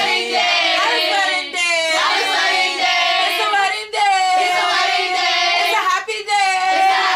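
A group of women singing together in high voices, unaccompanied.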